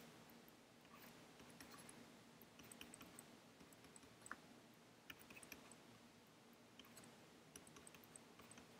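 Near silence with faint, scattered clicks and taps of hand-writing numbers into a drawing program on a computer, over a faint steady hum.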